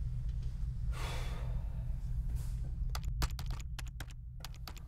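Fast, irregular keystrokes on a computer keyboard, starting about three seconds in, over a steady low hum. A short breathy sigh comes about a second in.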